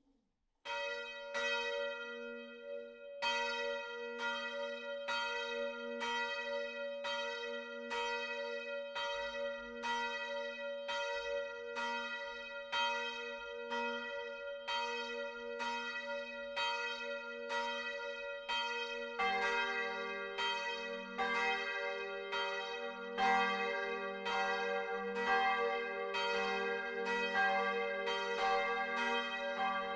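Bronze church bells cast in 1950 by Junker of Brilon start swinging and ringing one after another, recorded close up inside the bell tower. The first bell starts about a second in and a second joins a few seconds later. A deeper bell joins about two-thirds of the way through, building toward the full peal of four bells tuned d'–f'–g'–b'.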